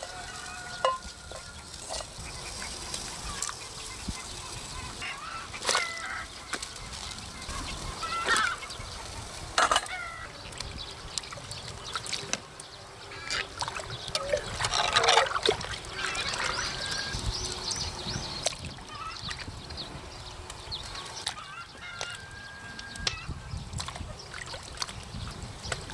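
Poultry calling intermittently in the background, with one longer, louder call about two thirds of the way through, over the splashes and plops of ingredients going into water in a cast-iron cauldron.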